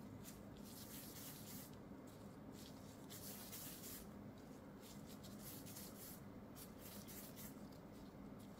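Faint, irregular scraping and rubbing as disposable-gloved hands gather mashed potato against a stainless steel bowl, over a low steady hum.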